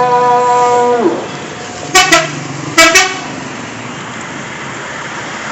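Indonesian 'telolet' multi-tone bus horn holding a note, which sags in pitch and cuts off about a second in. Two short toots follow about a second apart, over steady road noise.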